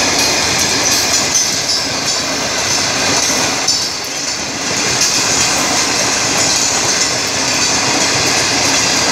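Passenger coaches of a Pakistan Railways express train rolling past close by: a steady, loud noise of steel wheels running on the rails, with occasional clacks.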